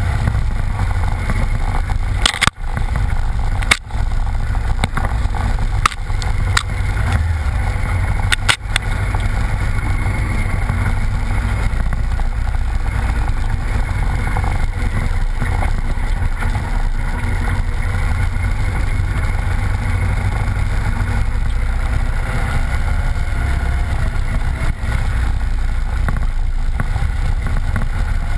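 Vehicle engine running steadily while riding a rough, wet dirt track, with wind and tyre noise on a camera mounted beside the knobby front tyre. A few sharp knocks come in the first nine seconds or so.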